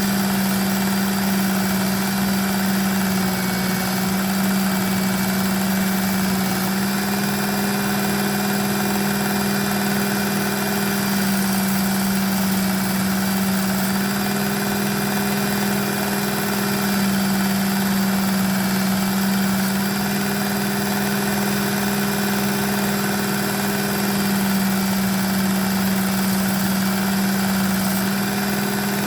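Work Sharp Ken Onion Edition belt sharpener's motor running steadily with a coarse abrasive belt, grinding a knife blade down to reshape a broken tip.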